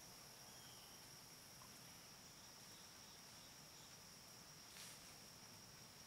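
Near silence, with a faint steady high-pitched insect drone, such as crickets, running throughout. A brief soft rustle comes near the end.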